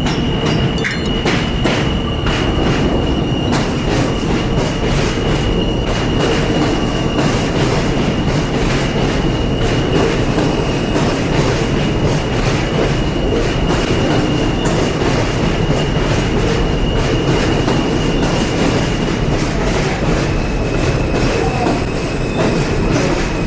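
R143 subway train running along the track: a continuous heavy rumble with rapid clicking of wheels over rail joints. A steady high-pitched wheel squeal holds for most of the time, then resumes slightly lower near the end.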